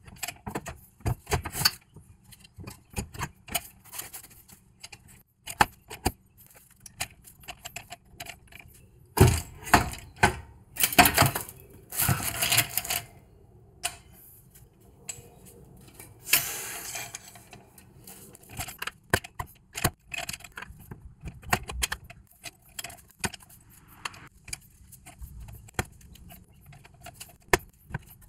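A ratchet wrench and metal tools clicking and clinking against the car's rear suspension parts as bolts are worked, in irregular runs of short clicks, busiest from about nine to thirteen seconds in.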